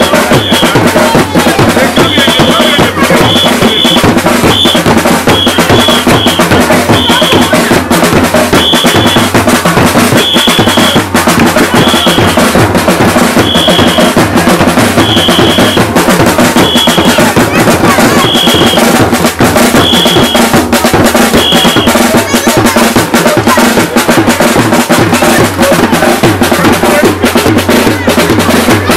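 Loud music with heavy drums and percussion. A short high note repeats about once a second through most of it, stopping near the end.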